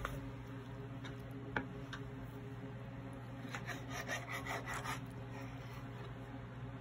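Chef's knife sawing back and forth through raw beef on a plastic cutting board: a quick run of rasping strokes from about three and a half seconds in, after a couple of light knocks, over a steady low hum.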